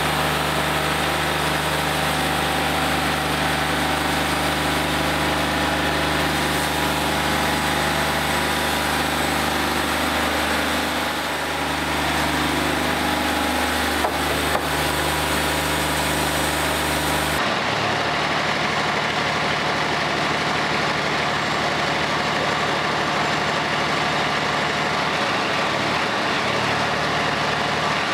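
Wood-Mizer LT40 Wide hydraulic bandsaw mill running, its engine humming steadily while the band blade cuts through a board. About two-thirds of the way through, the hiss of the cut stops suddenly and the engine runs on at a steady idle.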